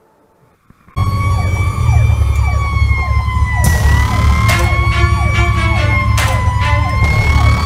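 Fire engine siren wailing, its pitch rising and falling slowly, heard from inside the moving truck's cab over a loud engine drone. It starts abruptly about a second in, with several short loud blasts over it in the middle.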